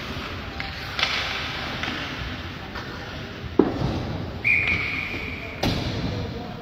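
A sharp knock on the ice hockey rink, then a short, steady blast of a referee's whistle, then another sharp knock a second later.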